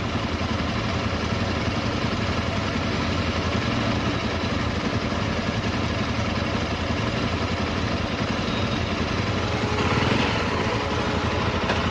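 Motorcycle engine running steadily with an even pulse, with a brief swell of added noise about ten seconds in.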